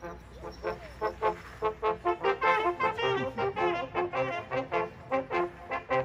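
Traditional Austrian hunting music played on brass: a brisk tune of short, detached notes, about three a second, beginning abruptly after a moment's silence.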